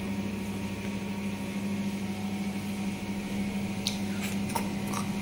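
Steady low mechanical hum over a constant hiss, with a few faint clicks near the end.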